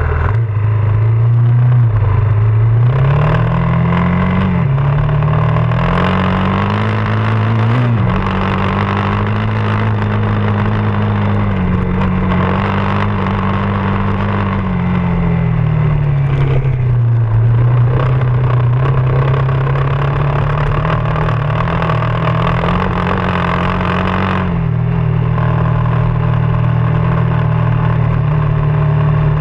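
Off-road motorcycle engine running under load, its pitch rising and falling with the throttle and dropping suddenly a couple of times in the first eight seconds, over a steady rushing noise.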